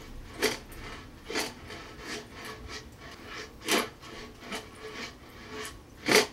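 Silicone basting brush rubbing cooking oil across a wire-mesh grill grate: about nine short rasping strokes, the loudest near the end.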